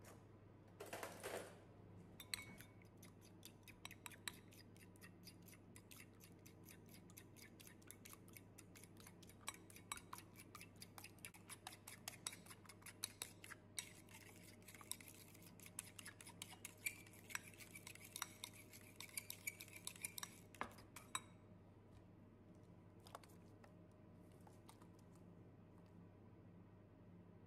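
Fork whisking eggs in a ceramic bowl: a quick, steady run of clinks of the fork against the bowl's side for about twenty seconds, then stopping.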